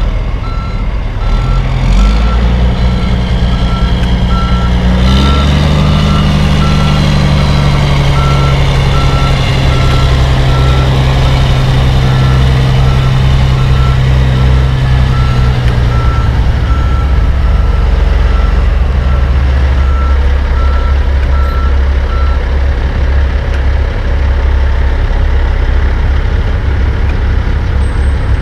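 Kenworth tandem-axle diesel dump truck backing up, its engine pulling hard and rising in pitch twice in the first few seconds, under a steady beeping reverse alarm. The beeping stops about two-thirds of the way through and the engine settles down.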